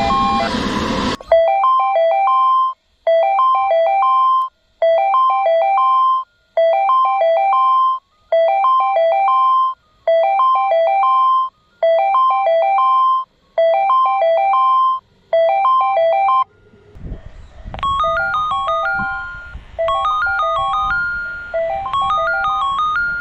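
Tobu Railway platform approach warning chime: a short electronic multi-note chime repeats nine times, about once every 1.7 seconds, warning that a train is arriving or passing. About 17 seconds in, a different, higher and busier chime melody starts looping, with station background noise under it.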